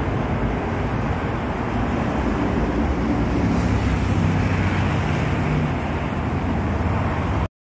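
Steady noise of dense traffic on a multi-lane expressway, many cars passing below, with a deeper engine drone swelling in the middle. It cuts off suddenly just before the end.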